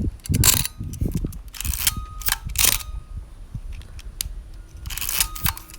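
Praktica Nova ER 35 mm SLR being cocked and fired at 1/30 s: the film-advance lever is wound and the shutter and mirror release, giving about four sharp mechanical clacks with light clicks between.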